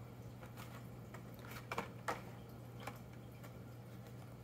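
Faint handling noise of blister-packed die-cast toy car cards: a few light clicks and rustles of card and plastic near the middle, over a steady low hum.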